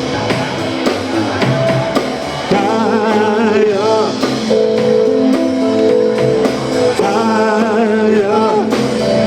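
Background music: a song with a singing voice over drums and guitar, with a steady beat.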